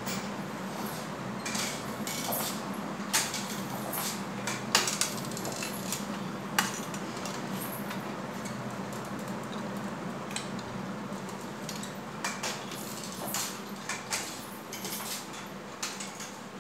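A crutch clicking and knocking on a hard stone floor as a person moves about on it, with scattered sharp taps, the loudest about five and six and a half seconds in, over a steady low hum.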